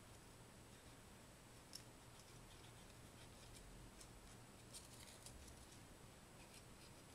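Near silence with faint, scattered crinkles and ticks of folded origami paper and a plastic glue bottle being handled, a small cluster of them about five seconds in, over a low hiss.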